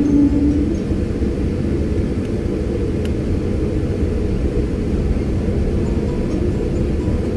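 Steady low rumble of an ANA Boeing 777-200 cabin with its Pratt & Whitney PW4074 engines running. A humming tone fades out within the first second.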